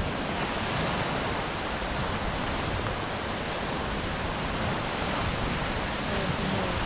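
Sea surf washing onto a sandy beach as a steady rush, with wind buffeting the microphone.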